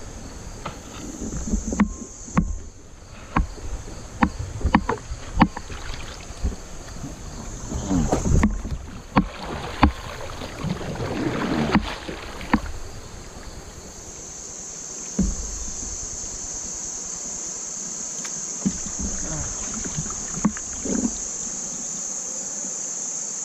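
Kayak knocking and clattering, with water sloshing and low rumbling, as the boat is handled in the creek current. Over roughly the second half a steady, high-pitched chorus of crickets takes over.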